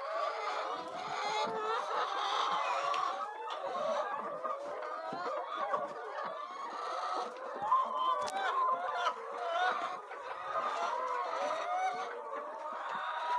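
A flock of chickens clucking and calling, many overlapping calls throughout, with one sharp tap about eight seconds in.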